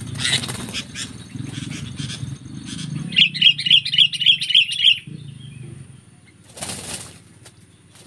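Sooty-headed bulbuls scuffling on the ground with wings flapping. In the middle comes a rapid run of harsh chattering calls, about five a second for two seconds, and near the end a short burst of wingbeats.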